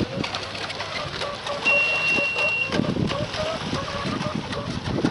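Electric RC racing boats running out on the water, a faint wavering motor whine, with wind gusting on the microphone. A steady high beep sounds for about a second, a second and a half in.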